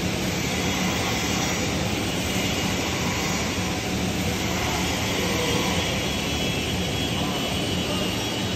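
Steady mechanical roar of workshop machinery, with a constant low hum underneath.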